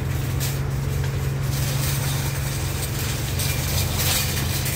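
A steady low mechanical hum, like a motor or engine running, under a faint hiss.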